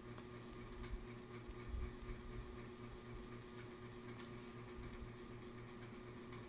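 Homemade fluffy slime being kneaded and pulled apart by hand, giving a few faint soft handling sounds over a steady low hum in the room.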